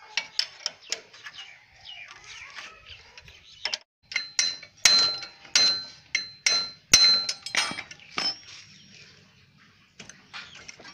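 Metal hand tools clinking and striking against the rear sprocket hub and wheel sleeve nut of a Honda CD70 motorcycle while the nut is worked loose. Light clinks come first, then a run of about eight sharp, ringing metal strikes from about four to eight seconds in.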